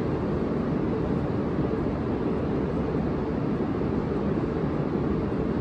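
H5 series Shinkansen standing at the platform, its onboard equipment giving a steady low rushing hum.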